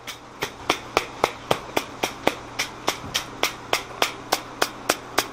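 Hammer blows on a forge-hot steel swage block, a rapid, even run of sharp metallic strikes, about four a second, each ringing briefly.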